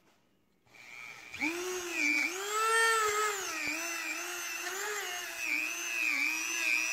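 Dremel rotary tool spinning a buffing pad inside an exhaust port of a cylinder head. It starts after about a second of quiet, and its high whine dips and rises in pitch as the pad is pressed against the port walls and eased off.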